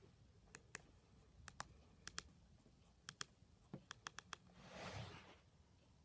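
Keypad buttons of an Alcatel 10.10 mobile phone clicking as they are pressed: about a dozen quiet, sharp clicks, often in quick pairs. A short soft rush of noise follows about five seconds in.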